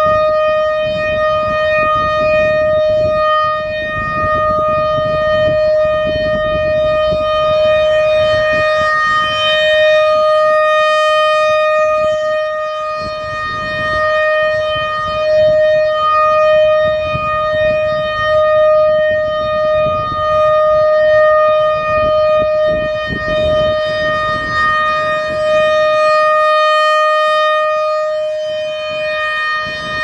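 American Signal RM-130 single-tone rotating siren sounding a steady full-alert tone. The pitch stays level while the loudness swells and fades as the horn turns.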